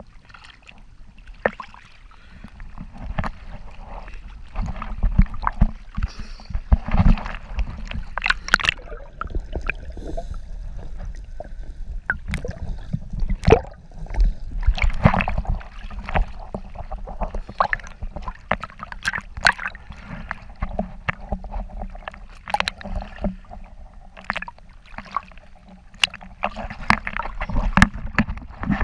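Sea water sloshing and gurgling around a waterproof camera bobbing at the surface and dipping under, with irregular knocks and splashes throughout.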